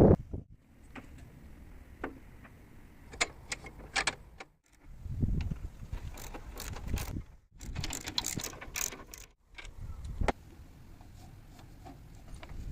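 Hand-tool work on small metal scooter parts: clicks, clinks and ratchet-like mechanical noises in short clips cut together, with brief dead-silent breaks between them.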